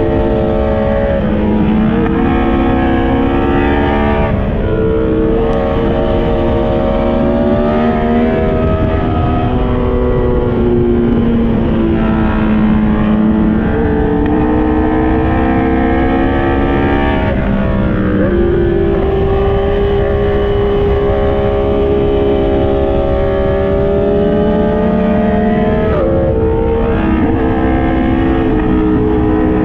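Yamaha MT-10's crossplane inline-four engine heard from on board while riding, its note climbing and falling through the bends, with several drops in pitch at gear changes, over steady wind rush.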